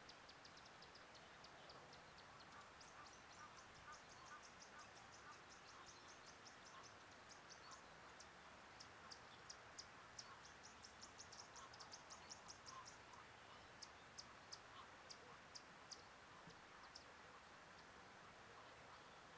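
Faint outdoor ambience of small birds chirping: runs of short, very high chirps, several a second, busiest in the middle stretch.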